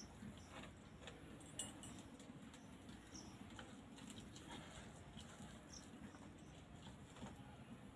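Faint crackle of a fire of dry palm fronds and sticks burning in a clay mud stove, with a low steady rumble and scattered small pops; one sharper pop a little over one and a half seconds in.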